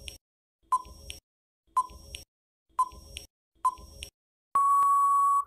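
Electronic countdown beeps: short beeps about once a second, then one long beep near the end, the usual sound-effect signal that thinking time is up.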